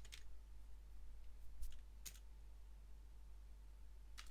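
Computer keyboard keystrokes, a handful of scattered clicks, over a low steady hum.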